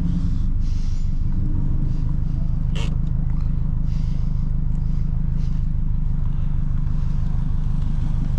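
Modified car's engine running steadily at low revs, a constant low rumble, with a single sharp click about three seconds in.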